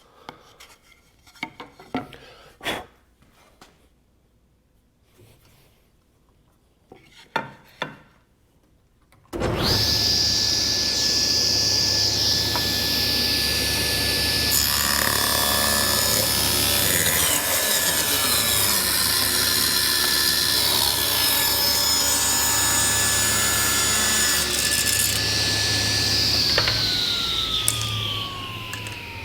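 Light knocks of wood being handled. Then a power saw starts suddenly and runs steadily while a board is ripped to width for about ten seconds. It is switched off near the end and winds down with a falling whine.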